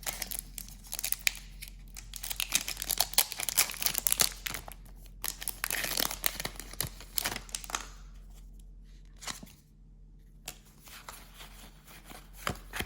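A foil Pokémon booster pack wrapper being torn open and crinkled. The crackling is dense for most of the time, then gives way to a quieter stretch with a few scattered rustles and clicks.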